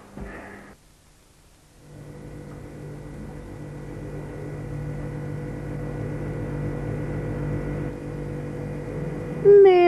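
After a second of near silence, a steady drone of several held tones fades in and slowly grows louder. Near the end a high voice starts singing.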